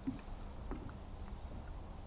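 Quiet ambience aboard a fishing boat on the water: a low rumble with a faint steady hum, and two light clicks, the second less than a second after the first.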